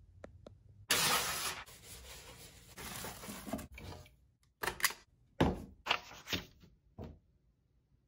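Rustling of handled packaging for a few seconds, then a plier-style stapler clacking shut about five or six times in quick succession.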